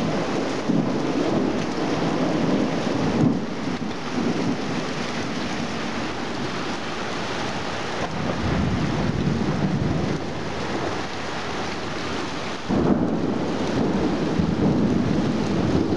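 Heavy thunderstorm rain pouring down steadily, with deep rolls of thunder: one swells about halfway through and another breaks in suddenly near the end.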